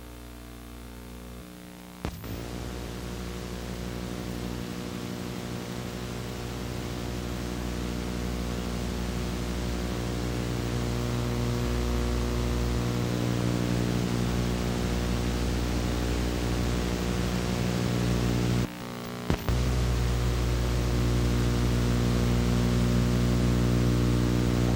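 Steady electronic hum with many overtones under a hiss, slowly growing louder. A click about two seconds in brings it up sharply, and it cuts out briefly with a couple of clicks about three-quarters of the way through.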